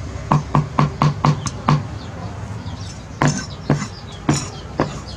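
Steel cleaver chopping garlic on a thick wooden chopping board: a fast run of strikes, about four a second, for the first couple of seconds, then after a pause, four slower chops about half a second apart.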